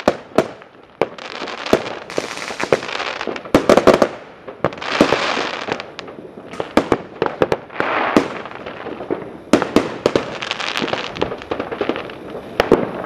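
New Year's fireworks going off all around: a rapid, irregular string of sharp bangs from firecrackers and aerial shells, with stretches of hissing crackle lasting about a second between them.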